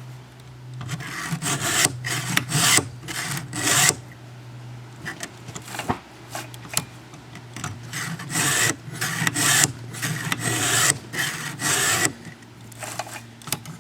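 Round chainsaw file rasping across the cutter teeth of an Oregon 73LPX chain, guided by a Granberg filing jig on the bar. It goes in repeated strokes of about two a second, with short pauses between teeth, as each cutter is filed back to the same length.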